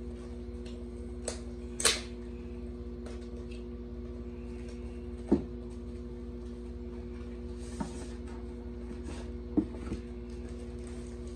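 Cardboard packaging of a Rode Wireless GO II handled by hand: a brief cardboard scrape about two seconds in, then a few sharp taps and knocks as the inner box is pulled out and set down on a cardboard carton, over a steady low hum.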